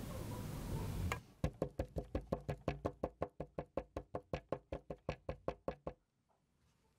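A small cardboard mould filled with wet white casting mix is rapped over and over on a wooden table, quick and even at about six knocks a second, then stops suddenly. This is the usual step to level the mix and drive out trapped air bubbles.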